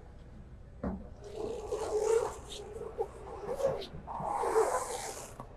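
Accordion bellows way cover being pushed back along a CNC sawjet's rail, its pleats rustling and rubbing as they fold together in two long pushes. A single knock comes just under a second in.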